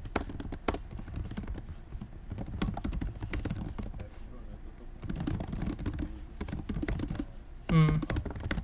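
Typing on a computer keyboard: quick, irregular key clicks, with a short burst of voice near the end.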